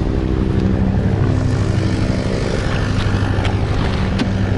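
Car engine idling close by, a steady low hum, with a few faint clicks, one as the rear door is opened near the end.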